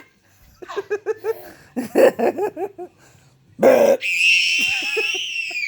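Young boy laughing hard in quick rhythmic bursts, then after a short loud burst he lets out a long high-pitched squeal that slowly drops in pitch near the end.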